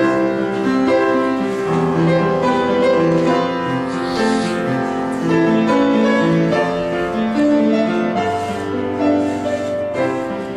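Piano playing the introduction of a Korean art song, a slow melodic passage of sustained notes and chords, before the tenor enters.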